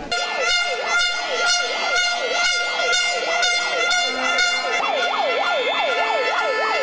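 Protest noisemakers: several horns blaring together in steady held tones, pulsing about twice a second. About five seconds in they are joined by a fast up-and-down siren wail.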